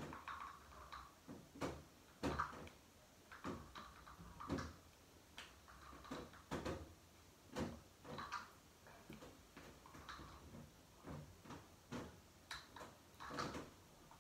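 Faint, irregular knocks and light clatters, about one or two a second, of objects being handled and set down out of sight.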